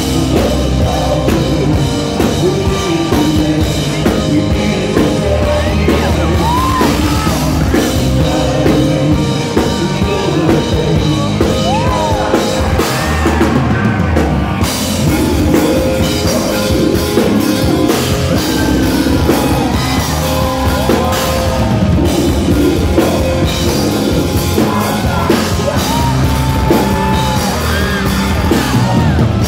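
Rock band playing live, with drums and a male lead singer, heard from among the audience.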